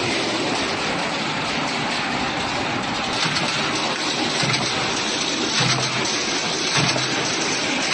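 Steady, loud, hissing noise of a steel scaffolding board roll forming machine running, with short low hums now and then.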